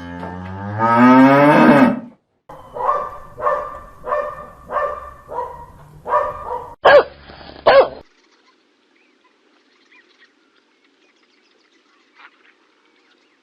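Cattle mooing: one long call that rises in pitch, then a run of short calls about every half second, ending with two louder ones. The calling stops about eight seconds in.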